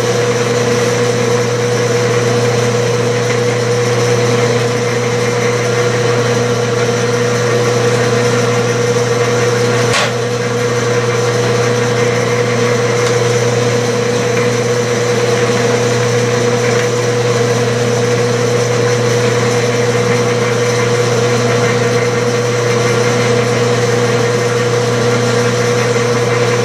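Gear-head Clausing metal lathe running steadily while threading passes are taken on the work, giving a constant machine hum with a steady whine. A single click comes about ten seconds in.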